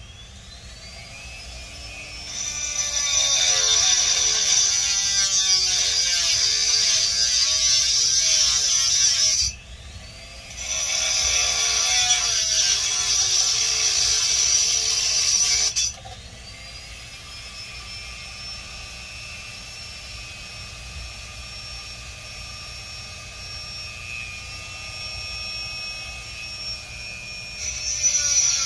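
Small high-speed handheld electric tool whining up to speed and running loud with a wavering, loaded sound. It stops briefly about nine and a half seconds in, runs loud again, then spins up anew and runs quieter and steadier for the rest, growing louder near the end.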